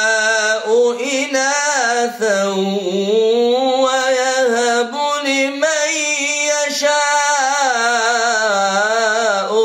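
A man's unaccompanied voice reciting the Quran in melodic mujawwad style, drawing out a single long ornamented melisma. The pitch wavers, trills and rises and falls in long held phrases, broken only by a few short pauses for breath.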